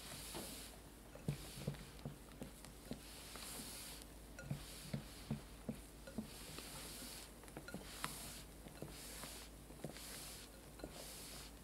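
Spatula folding stiff meringue into matcha sponge batter in a glass bowl: soft wet squishing and swishing of the batter about once a second, with light knocks and clicks of the spatula and bowl.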